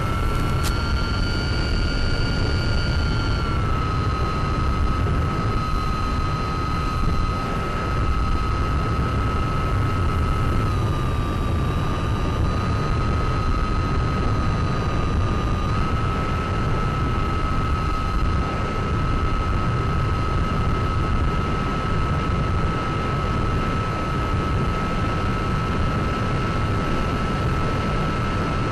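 Onboard audio from a Mini Talon FPV plane in flight: a constant wind rush over a steady whine from its SunnySky 1240kv brushless motor driving an 8x6 propeller. The whine's pitch shifts slightly a few times as the throttle changes.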